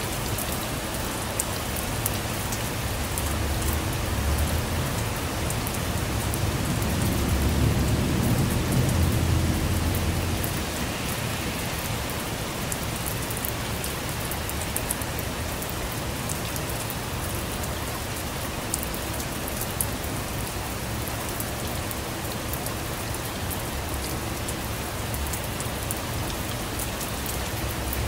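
Steady rain falling on a surface, with many individual drops ticking sharply. A low rumble of thunder swells about four seconds in, is loudest around eight to ten seconds, and dies away shortly after.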